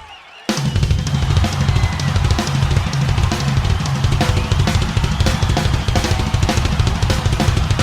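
Rock band's instrumental intro: the full band comes in suddenly about half a second in, with a drum kit playing a steady, evenly repeating beat over heavy bass.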